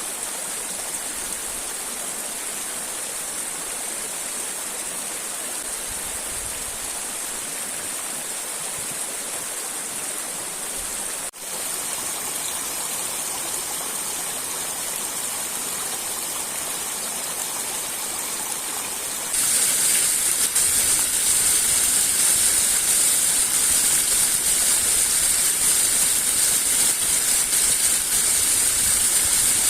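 Rushing river water and waterfall, a steady dense rush. About 11 seconds in there is a momentary break, and from about 19 seconds on the rush is louder and hissier.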